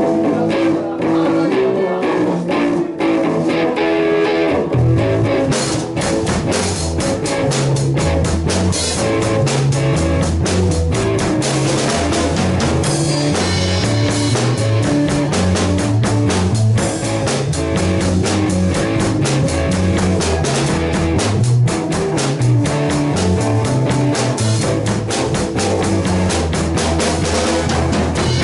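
Live rock band playing an instrumental passage: electric guitar alone at first, then bass and drums come in about five seconds in and the full band plays a driving rock groove.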